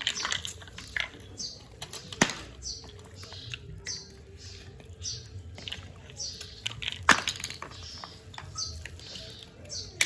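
Newly hatched bird chicks giving short, high cheeps over and over, about two a second, with a few sharp clicks; the loudest clicks come about two seconds in and about seven seconds in.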